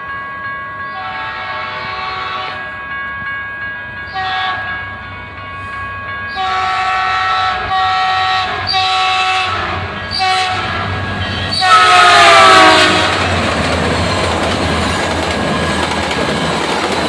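A train horn sounding a series of chord-like blasts, short and long, growing louder; the loudest blast, about two-thirds of the way in, slides down in pitch as the train passes, followed by the steady rumble of the passing train.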